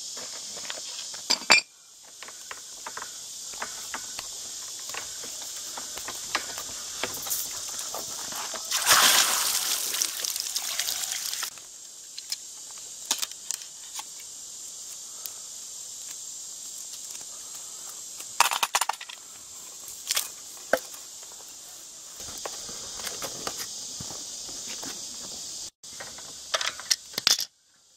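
A steady high insect chorus, with scattered clicks and knocks of hand work on metal well pipe and sucker rod, and a louder rustling scrape of about three seconds starting around nine seconds in.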